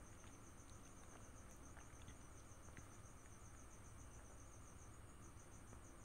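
Near silence, with a faint cricket chirping in a fast, even pulse of about six chirps a second and a brief pause about five seconds in.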